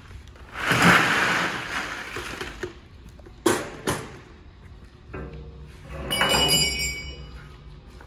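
Ice cubes poured from a plastic tub into a plastic kiddie pool, a loud rattling rush lasting about two seconds, followed by two sharp knocks. Then a capped 55-gallon steel drum is lifted and handled, its thin steel shell ringing with several high tones.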